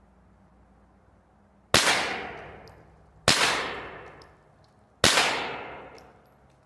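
Three single shots from a pistol-caliber carbine (sub-gun), about a second and a half apart, each followed by a long echoing decay.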